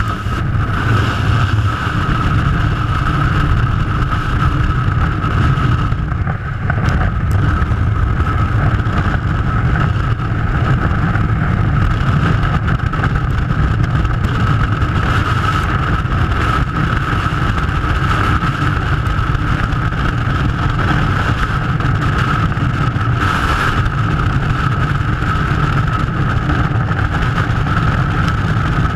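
Freefall wind rushing over a helmet-mounted camera: a loud, steady, deep rumble with a thin steady whistle riding above it.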